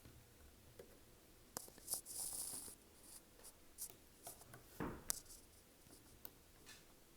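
Faint handling sounds while the motor of an HO-scale model locomotive is being oiled: scattered small clicks and taps, a short scratchy rubbing hiss about two seconds in, and a brief rustle about five seconds in.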